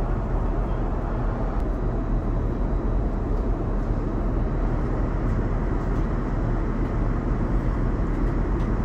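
Steady airliner cabin noise in cruise: a constant rushing hum of air and engines, deepest tones strongest.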